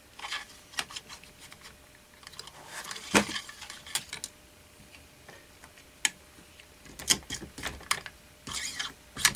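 Metal cleaning rod being run down the bore of an AR-15 upper receiver, clicking and scraping against the receiver and chamber. Scattered sharp clicks, several in quick clusters, with a few brief scrapes.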